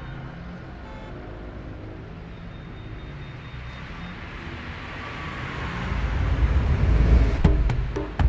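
A car driving past, its engine and road noise swelling to a peak about seven seconds in. A light percussive beat starts near the end.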